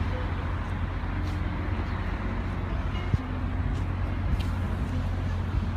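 Steady low rumble of city street traffic, with one small knock about three seconds in.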